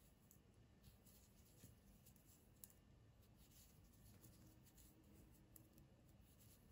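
Near silence, with a few faint light clicks of knitting needles working wool.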